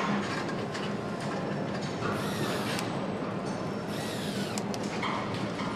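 Panasonic cordless electric screwdriver whirring in short runs, about two seconds and four seconds in, as it drives screws, over a steady hum of assembly-line machinery.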